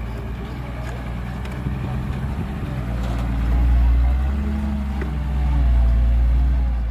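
Heavy diesel engine of earthmoving machinery running under load, a deep steady drone that swells louder about three and a half seconds in and again near six seconds.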